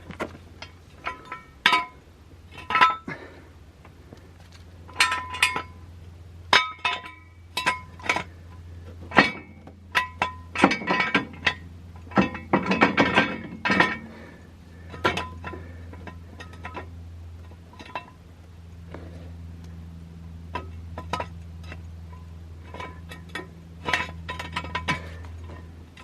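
Irregular metal clinks and clanks with short ringing, from steel jack stands being set up and positioned under a car, with a denser run of clatter about halfway through.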